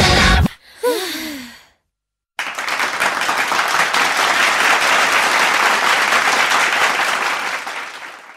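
The pop song cuts off, and a voice gives a short, falling sigh. After a moment of silence, applause runs for about five seconds and fades out near the end.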